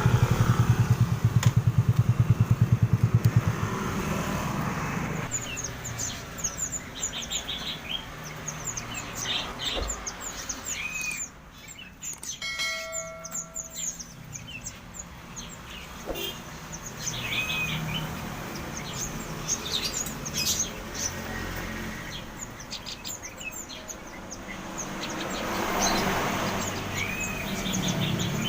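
A motorcycle engine runs for the first few seconds and then drops away, leaving many small birds chirping over one another.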